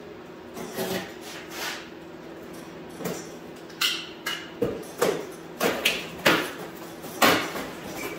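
A long cardboard shipping box being cut and torn open by hand: rips of tape and cardboard and knocks of the box. The sounds come as a string of short, sharp noises, densest in the second half.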